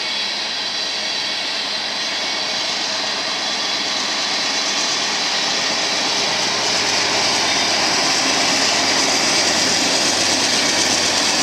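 BNSF diesel locomotives under power, accelerating as they pass close by: a steady engine and turbocharger sound with a strong hiss, growing louder over the second half.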